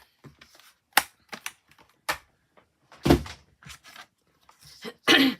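Several separate clicks and knocks of craft supplies being handled on a tabletop. The loudest come about three seconds in and near the end.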